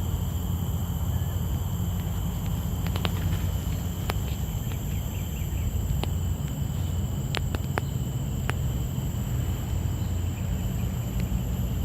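Insects calling in a steady high drone of several constant tones, over a continuous low rumble, with a few sharp clicks.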